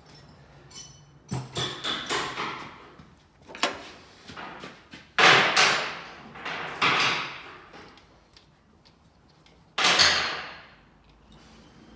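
A series of sharp metal clanks and knocks, each ringing out briefly, from hand tools and parts being handled during engine work; the loudest come about five seconds in and near ten seconds.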